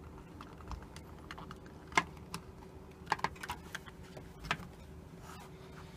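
Irregular small clicks and taps of plastic parts being handled and pried at in an alarm clock's gear movement, with a sharper click about two seconds in and a quick cluster of clicks a second later.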